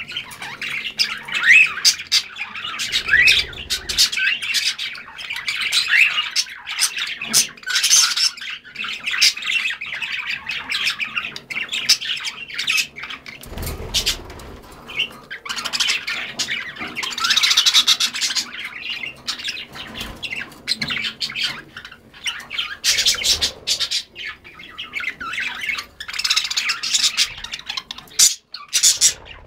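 A mixed flock of cockatiels and budgerigars chattering, chirping and squawking without pause, with short rising whistles among the calls. About fourteen seconds in there is a brief flutter of wings.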